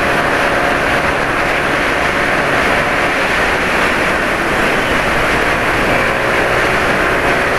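Motor scooter riding along at road speed: steady wind rush over the microphone with road and engine noise underneath and a faint engine drone.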